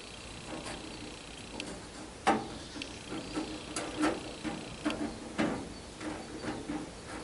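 Scattered clicks and knocks from hand work on an International 46 baler, with one sharper knock about two seconds in.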